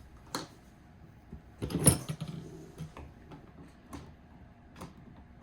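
Small clicks and knocks of parts being handled during a hand assembly of a radio-controlled truck kit: a single tick, a louder cluster of clatter about two seconds in, then a few scattered light ticks.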